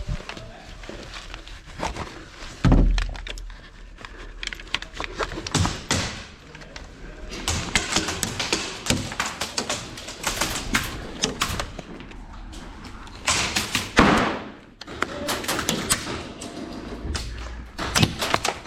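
Indoor airsoft close-quarters game: a run of sharp clicks, knocks and thuds, airsoft gunfire and BB hits among them, with denser clusters of rapid clicks and a loud thump about three seconds in.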